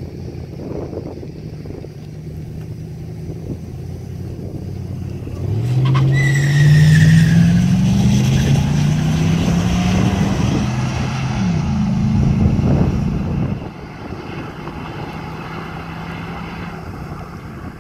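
Two pickup truck engines idling, then launching about five seconds in and accelerating hard, the revs climbing in steps through gear changes with a brief squeal at the launch; the sound drops off suddenly after about eight seconds of acceleration as the trucks get farther away.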